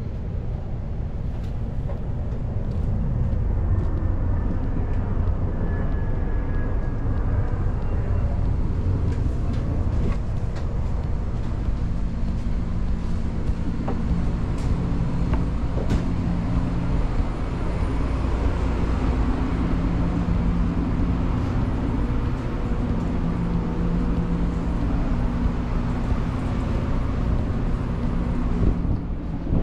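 Steady low rumble and hum of commercial kitchen machinery, such as exhaust hood fans, with a few faint clicks and knocks.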